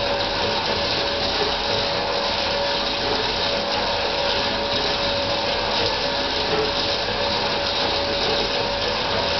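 Homemade jaw crusher running steadily: its electric motor and belt-and-pulley drive give an even whir with one constant tone through it.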